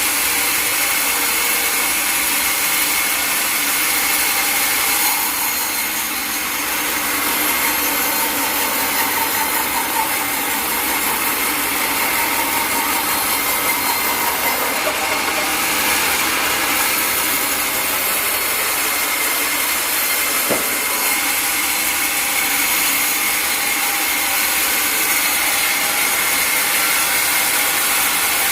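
Sawmill saw cutting through a log: a steady hiss of the blade in the wood over machinery running, with a high steady ringing tone.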